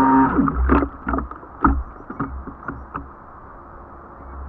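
Water splashing in several sharp slaps around a small RC jet boat, then a steady low rumble of moving water.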